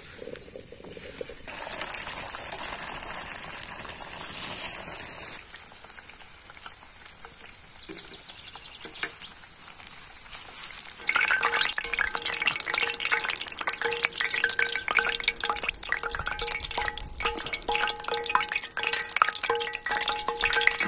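Food frying in hot oil in a pan: a loud sizzle with dense crackling starts suddenly about halfway through and keeps going. Before it, a softer hiss comes and goes.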